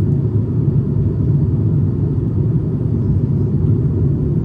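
Steady low cabin rumble inside an Airbus A350-900 airliner on approach: engine and airflow noise from the Rolls-Royce Trent XWB engines.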